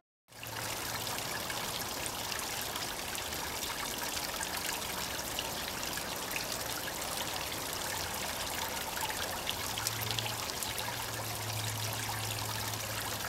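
Water trickling steadily in a sculpted garden bowl fountain, starting just after a brief silence.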